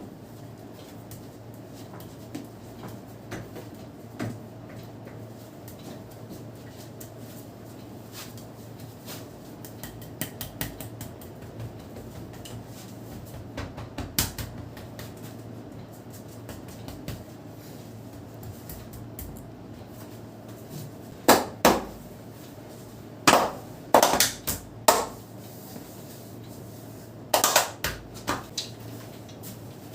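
Hand massage on a person's head and body: soft rubbing with small ticks, then a run of about eight sharp slaps in pairs and short clusters over the last third, the loudest sounds here. A steady low hum runs underneath.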